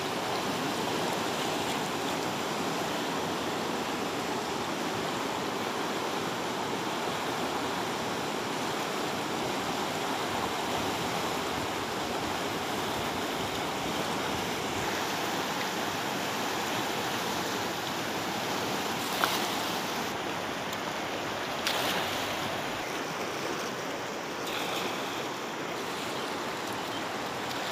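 Fast, swollen Jhelum River rushing over rocks and rapids: a steady, even roar of turbulent water. Two brief knocks sound in the last third.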